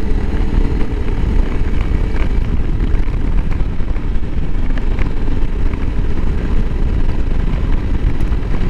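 2021 Honda CRF300L Rally's single-cylinder engine running while riding, under a steady rush of wind noise.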